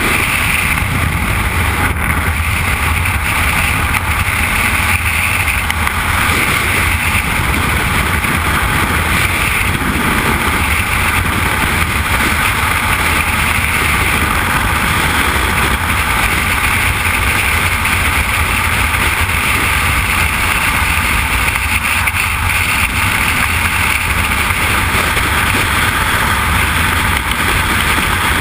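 Skydiving freefall wind: air rushing past a body-worn camera's microphone at freefall speed, a steady, loud, unbroken rush with buffeting on the microphone.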